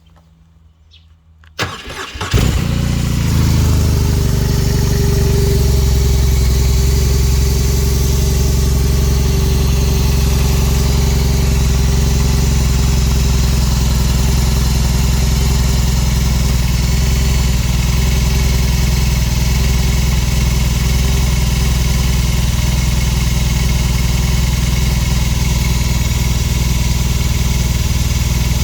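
BMW R18 Classic's big air/oil-cooled boxer twin cold-started: the starter cranks briefly about a second and a half in, the engine catches, and it then idles steadily.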